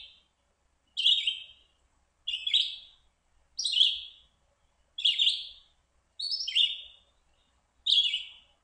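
Red-eyed vireo singing: six short, separate warbled phrases with brief pauses between them, the 'here I am, where are you, over here in a tree' pattern.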